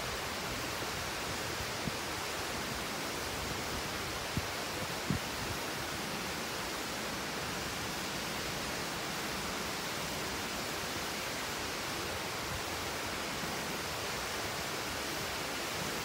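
Steady hiss of a waterfall falling, an even unbroken rush with no rise or fall. Two faint taps come about four and five seconds in.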